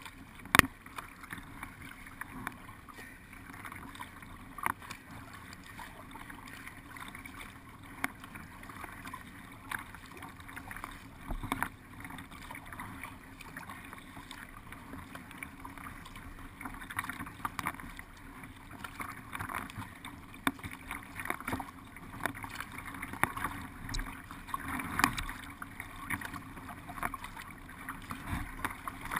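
Water swishing and lapping along the hull of a paddled race boat under way, with irregular splashes from the paddle. Sharp knocks and clicks come now and then, the loudest about half a second in.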